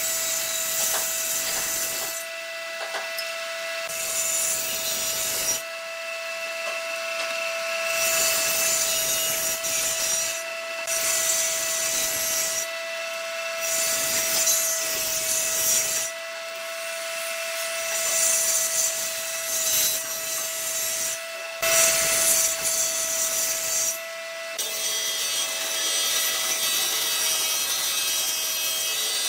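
Table saw running with a steady whine, making a series of rip cuts through small wooden boards, each pass a couple of seconds of blade-through-wood noise, about six or seven in all. Near the end it gives way to a bandsaw running and cutting a block of wood.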